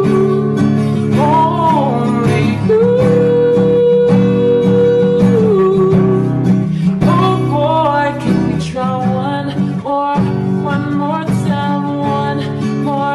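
Background music: a slow pop song with acoustic guitar and a long held, wordless sung melody line.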